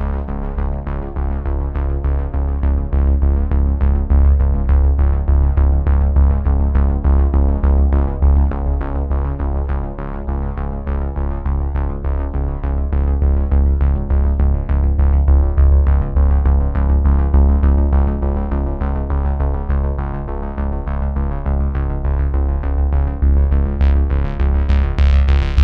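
Background music: sustained chords over a steady, heavy bass.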